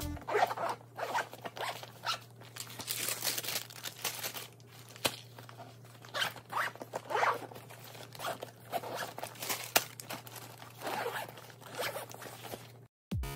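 Zippers on insulated fabric lunch bags being pulled shut in a series of zip strokes, with fabric rustling between them.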